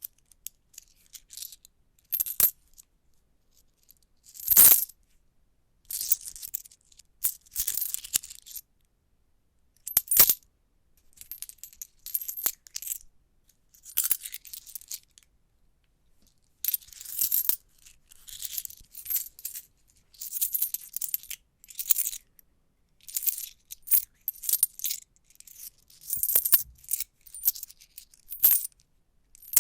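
Loose coins shaken and jingled in a hand: irregular clusters of high, bright metallic clinks separated by short pauses, with one louder jangle about four and a half seconds in.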